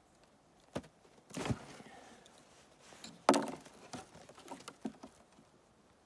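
A knife cutting through a ballistic gel block, with short scraping and light knocks. A little past the middle comes one loud thunk on the wooden bench as the knife is set down and the cut block is handled, followed by a few soft taps.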